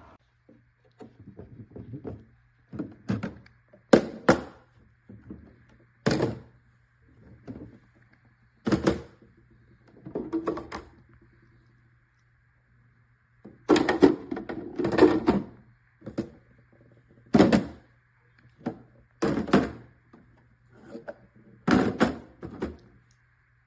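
Plastic fridge organizer bins and lids being handled: an irregular series of knocks and clunks, with a longer clatter about two-thirds of the way through, over a faint steady low hum.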